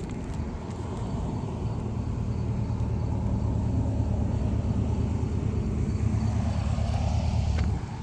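A vehicle engine rumbling steadily, growing louder, then cutting off abruptly near the end.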